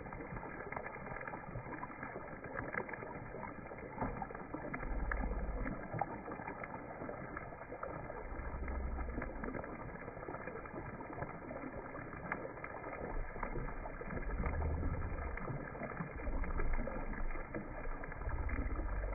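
Hot oil sizzling steadily as lobster tails fry, with scattered crackles and pops. Low rumbles swell up several times, about 5, 9 and 15 seconds in and near the end.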